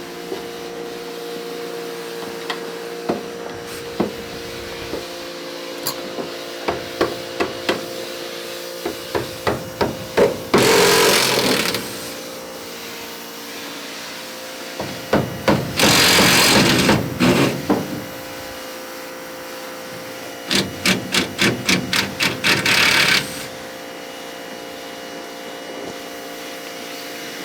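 Hammer blows on the bus body during the teardown. Single knocks come faster and faster, with three loud bursts of rapid strikes and noise. A steady hum runs underneath.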